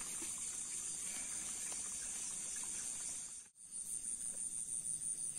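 Crickets chirring, a steady high-pitched trill that breaks off for a moment a little past halfway.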